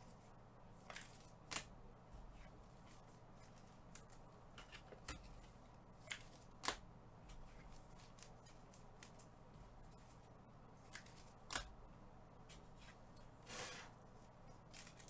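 Faint, scattered clicks and taps with a short rustle near the end: trading cards and their pack wrappers being handled between reveals.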